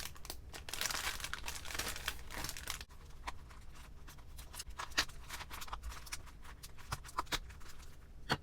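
A stationery packet's packaging and papers crinkling as they are handled: a dense stretch of rustling for the first three seconds, then scattered crinkles and sharp ticks.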